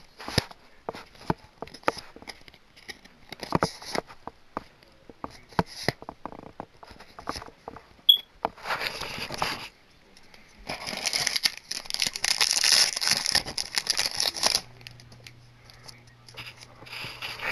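Trading cards handled and slid past one another, a scatter of light clicks, then crinkling and tearing of a booster pack wrapper, briefly at first and then for about four seconds near the middle.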